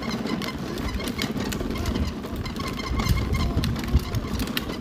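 Battery-powered ride-on toy scooter driving over asphalt: a steady low rumble from its motor and hard plastic wheels, heavier a little past the middle, with scattered clicks.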